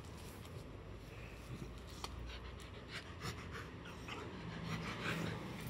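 A dog panting and sniffing in quick, faint breaths.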